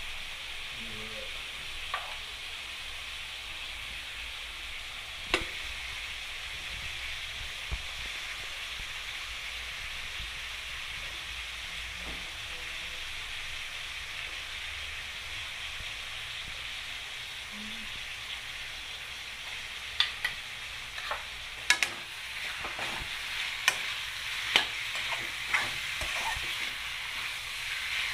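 Chicken pieces and onions sizzling steadily in hot oil in a metal pan. From about twenty seconds in, a metal spoon stirs them, scraping and knocking sharply against the pan.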